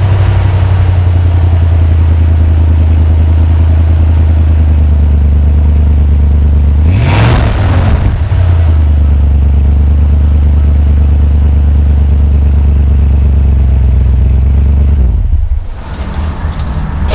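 Ford Bronco engine idling through a new 3-inch cat-back exhaust with a Flowmaster 40 muffler: a deep, steady drone, loud from right beside the pipe. About seven seconds in it is revved once, rising and falling over about a second, and near the end the drone drops away sharply.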